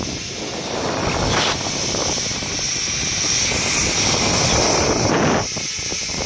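Wind rushing over the microphone during a zip line ride, with a steady high whir of the trolley running along the steel cable. The rush eases briefly near the end.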